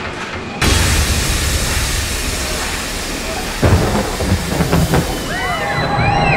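Sound effects for a roller coaster launch. A sudden loud rushing hiss starts about half a second in, like a blast of fog. Rumbling thunder and heavy thumps join a few seconds later, and high, arching bird-like cries come in near the end.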